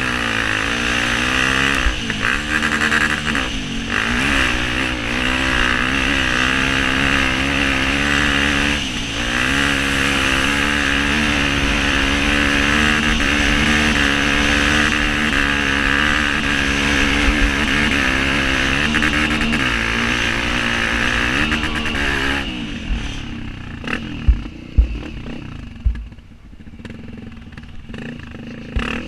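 Dirt bike engine revving up and down under load as it climbs a trail. About three-quarters of the way through the engine sound drops sharply to a low level, with a few sharp knocks.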